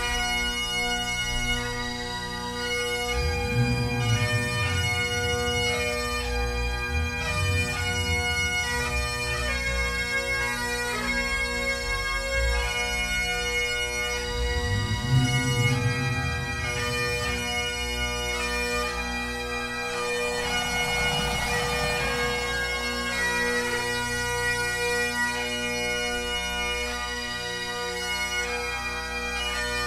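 A band of Great Highland bagpipes playing a tune in unison, the chanter melody moving over the steady hum of the drones.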